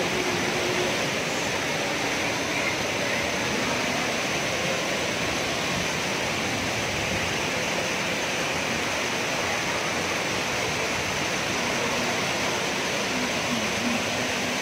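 Waterfall pouring over rocks into a shallow pool: a steady, even rush of falling water.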